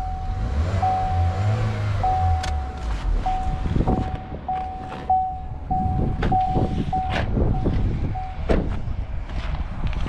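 A car's warning chime dinging on one steady tone, about once a second at first and then about twice a second from about four seconds in, while the driver's door stands open. The chime stops just after eight seconds in, followed by a thud, with knocks and handling noise throughout.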